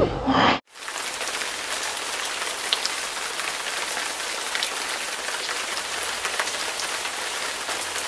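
Steady rain sound, an even hiss with faint scattered drop ticks, that starts abruptly just under a second in after a brief snatch of voices.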